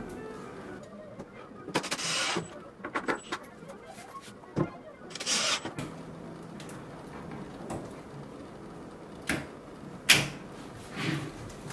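Glass-panel doors being fitted into a wall cabinet: scattered knocks and clicks, and several brief scraping slides as the panels are set into their track and pushed along. A sharp knock about ten seconds in is the loudest.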